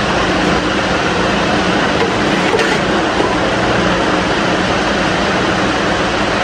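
Steady, even whooshing whir with a low hum from a running room cooling appliance, unchanged throughout.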